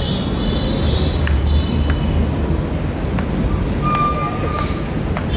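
Steady low rumble of passing road vehicles, with a few brief high-pitched squeals and sharp clicks over it.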